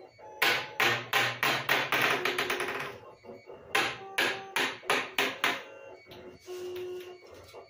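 3D-printed PLA ping pong ball bouncing, the hits coming faster and faster as it settles, then bounced again in a second, shorter run of quickening hits.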